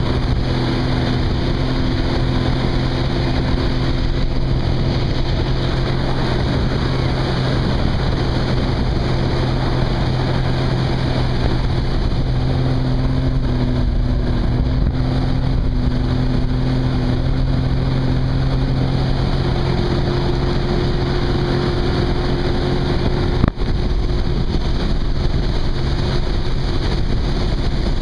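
Sea-Doo personal watercraft engine running at a steady cruise, around 4,800 rpm, with wind buffeting the microphone and water rushing under the hull. There is one short click late on.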